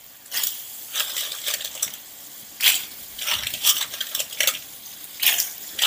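Small blanched clams in their shells (siput biji nangka) dropped by the handful into a wok of chilli sauce, the shells clicking and clattering against each other and the pan in irregular bursts.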